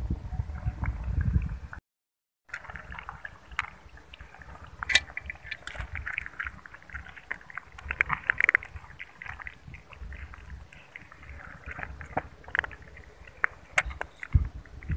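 A kitten lapping milk from a plastic container, with many quick, wet clicking licks. The first two seconds hold a low rumble, then the sound drops out briefly before the lapping.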